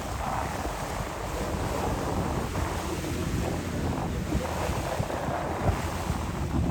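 Wind buffeting the microphone over water rushing past the hull of a moving boat, with a steady low rumble.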